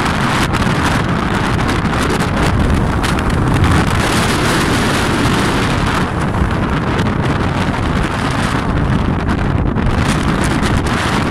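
Strong wind buffeting the microphone: a loud, steady rushing noise, heaviest in the low rumble.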